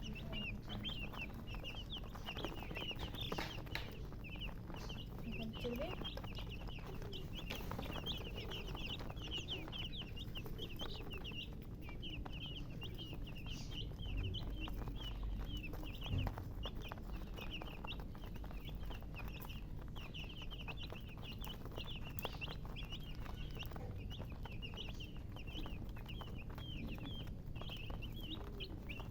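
A brood of baby chicks peeping continuously: many short, high chirps overlapping several times a second.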